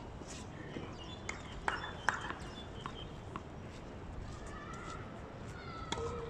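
Tennis ball bounced several times on a hard court, a handful of sharp, uneven knocks over a couple of seconds, as a player readies to serve.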